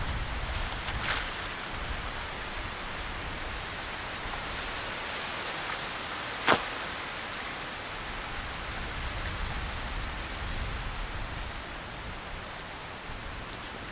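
Steady rushing noise of wind outdoors, with a sharp click about six and a half seconds in.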